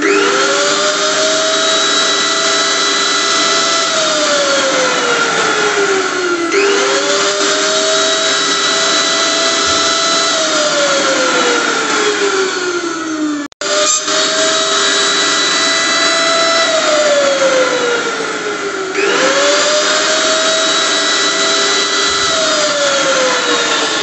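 Electric blender motor spinning up with a quickly rising whine, running at a steady speed for about four seconds, then winding down with a falling whine. The cycle repeats four times, about every six seconds. A brief dropout comes a little past halfway.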